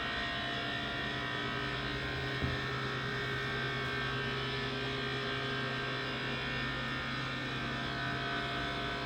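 Walk-in refrigerator's refrigeration unit running: a steady machine hum made of several held tones, with a single short click about two and a half seconds in.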